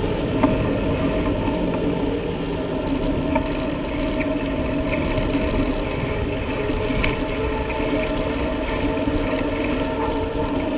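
Steady rumbling road and wind noise from a bicycle ride, picked up by a helmet-mounted camera, with a faint steady drone underneath.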